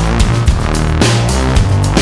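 Electronic background music with heavy bass and a steady drum beat.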